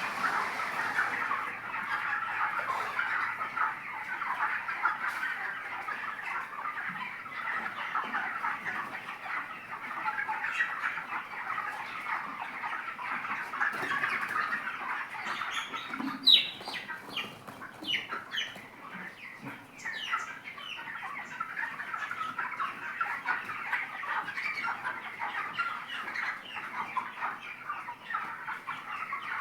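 A large flock of 25-day-old broiler chickens clucking and calling continuously, a dense overlapping chatter, with a few sharper, louder calls just past the middle.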